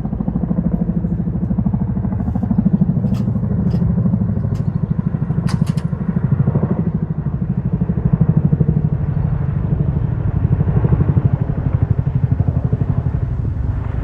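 Helicopter flying low overhead, its rotor beating in a fast, steady low pulse that swells and fades slightly, with a few brief clicks a few seconds in.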